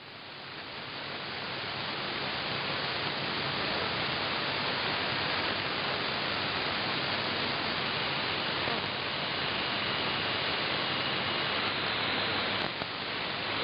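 Shortwave static and hiss from a Perseus software-defined receiver in AM mode, tuned between stations on the 19-metre band, over a faint low hum. The noise swells over the first couple of seconds, and a faint high steady whistle comes in for a few seconds in the middle.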